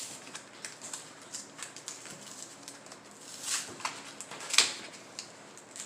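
Handling of trading-card packs and cards: scattered light clicks and crinkles, with two louder sharp rustles about three and a half and four and a half seconds in.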